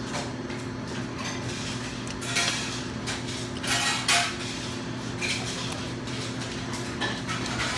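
A fork clinking and scraping against a ceramic bowl and plate, a handful of short scrapes spread over several seconds, over a steady low hum.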